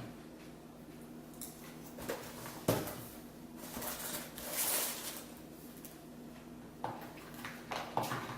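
Eating cereal from a bowl: a spoon clinks against the bowl a few times, the sharpest knock about three seconds in, with a longer rustling, scraping stretch near the middle. A low steady hum runs underneath.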